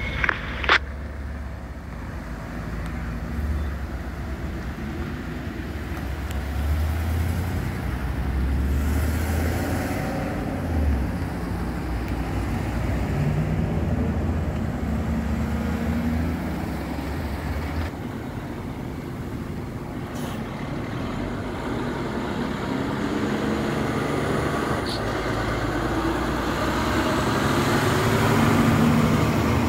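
Emergency vehicles driving past one after another, a steady low engine rumble that shifts as each passes. A sharp knock comes about a second in, and near the end a fire engine's engine grows louder as it approaches.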